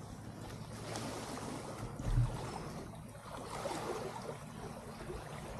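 Wind buffeting the microphone over the wash of sea waves, with a low steady hum underneath and a single thump about two seconds in.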